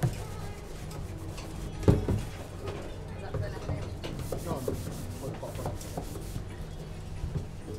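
Kitchen ambience during food prep: a steady low hum under scattered knocks and clatter, with one sharp knock about two seconds in and faint voices in the background.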